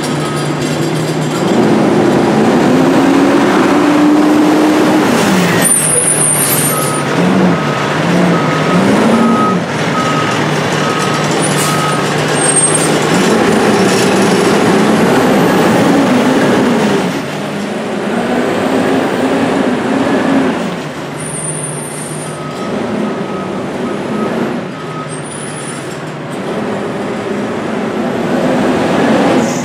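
Diesel engine of a Condor garbage truck with an Amrep HX-450 automated side loader, revving up and down over and over while it works the carts. A steady beeping alarm sounds in several stretches, and there are a few short high hisses.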